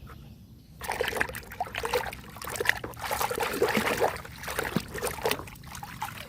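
Water splashing and trickling as a muddy toy vehicle is washed. The splashing starts about a second in and goes on irregularly with small crackling splashes.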